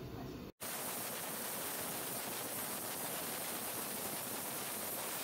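Pressure cooker venting steam through the weight on its lid: a steady, hissing jet that starts abruptly about half a second in, a sign that the cooker has come up to pressure. Before it, a low rumble.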